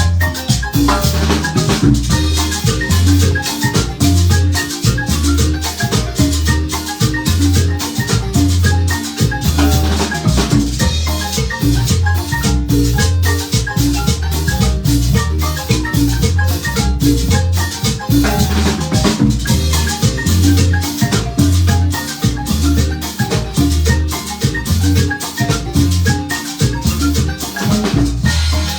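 Marimba band music: many fast struck mallet notes over a steady, regular bass line, with percussion clicking along in time.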